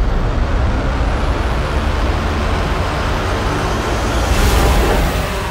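Large multirotor camera drone's motors and carbon propellers running, a loud steady rotor-wash rumble with a brief swell about four and a half seconds in.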